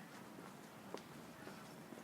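Faint footsteps on a city sidewalk, a few soft steps with one clearer step about a second in, over a quiet, steady street background.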